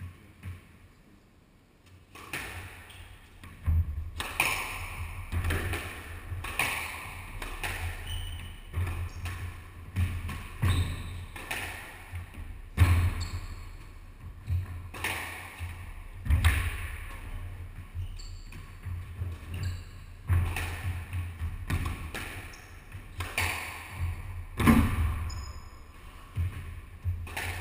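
Squash rally: the ball cracking off rackets and walls about once a second, with the players' shoes thudding on the wooden court floor, all echoing in the enclosed court. The rally starts about two seconds in.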